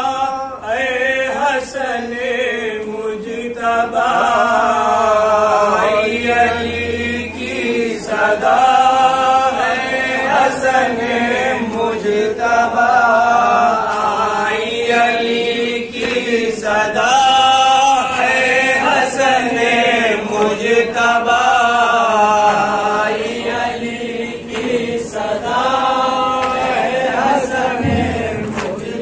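A group of men chanting a noha, an Urdu lament, in unison through a microphone. A sharp slap comes every couple of seconds, from hands striking chests in matam.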